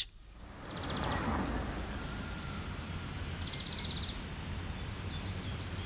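Outdoor ambience of small birds chirping, with a short rapid trill twice, over a steady background hum.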